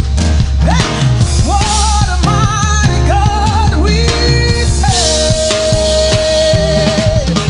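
Live praise-break band music: drum kit and a heavy bass line under a wavering lead melody, which holds one long note in the second half.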